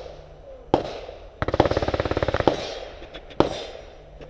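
Gunfire: a single shot, then a very rapid burst of reports lasting about a second, then one more single shot, each trailing off.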